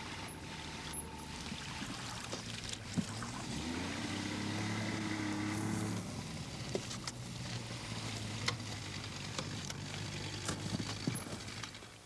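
Outboard motor of a small boat running as the boat pulls away, picking up speed about three and a half seconds in and easing back about two seconds later.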